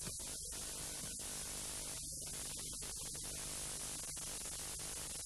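Steady hiss and low mains hum from an old videotape recording, with several brief dropouts where the sound cuts out for an instant.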